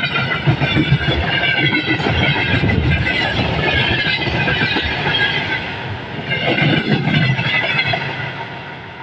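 Freight train wagons rolling past close by: steel wheels clattering and thumping on the rails, with a high, wavering metallic wheel squeal over it. The sound dies away near the end.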